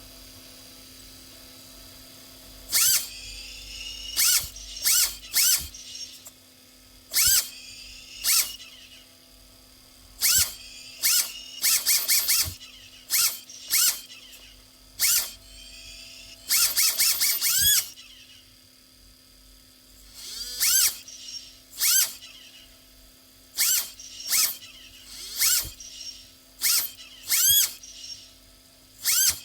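RC car giving repeated short throttle blips meant to show off its backfire and turbo sound. About twenty sharp bursts come in irregular clusters, each with a whistle that rises and falls, starting a few seconds in over a steady faint hum.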